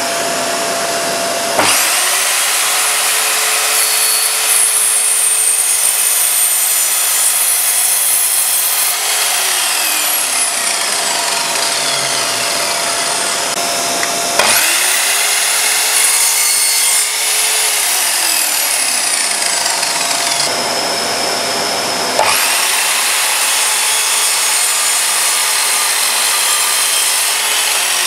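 Evolution R210SMS multi-material mitre saw started three times: each time the motor whines up to speed and the blade cuts through plastic pipe and pine, and after the first two cuts the blade spins down with a falling whine.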